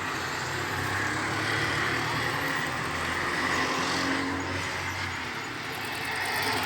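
A motor vehicle engine running steadily, a low even hum with a noisy hiss above it.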